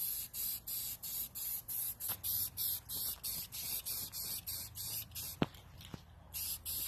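Aerosol spray-paint can hissing in short, quick bursts, about three a second. The bursts pause briefly about five and a half seconds in, then start again. A single sharp click comes just before the pause.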